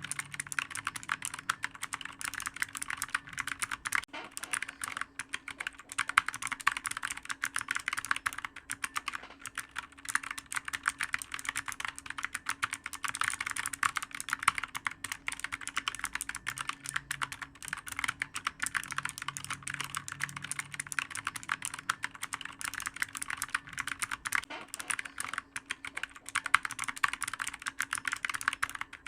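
Someone typing continuously and fast on a clicky computer keyboard, a rapid unbroken patter of key clicks.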